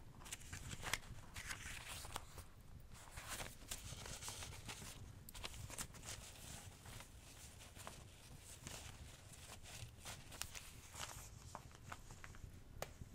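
A wood fire crackling with scattered small clicks and pops, mixed with soft intermittent rustling, heaviest in the first few seconds, over a low steady rumble.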